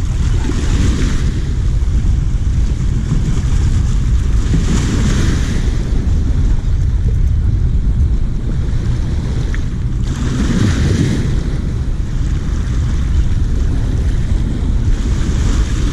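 Fast, raging river water rushing steadily, with wind buffeting the microphone; the hiss swells and eases a few times.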